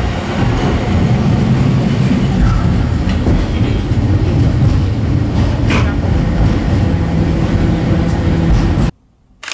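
Passenger train running, heard from inside the carriage: a steady, loud low rumble of wheels on the rails. It cuts off suddenly near the end.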